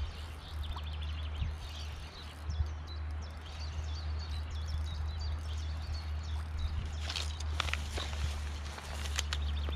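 Riverside ambience in spring: small birds chirping over a steady low rumble, with a few sharp clicks and rustles in the last few seconds.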